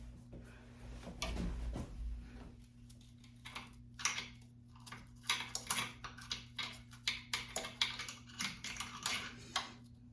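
Quick, irregular scratchy clicks and taps of small hand-held cleaning work in the bobbin area of a longarm quilting machine as built-up lint is cleared out, with a few dull knocks about a second in.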